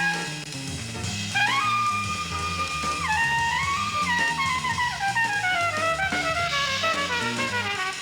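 Jazz music: a brass horn melody with sliding notes over bass and a drum kit.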